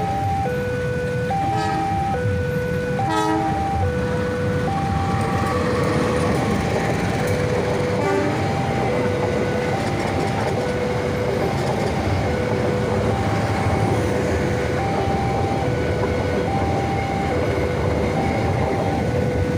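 A level-crossing warning signal sounds throughout, alternating high and low tones. A passenger train crosses with a building rumble of wheels on rail, and its horn sounds briefly about three seconds in.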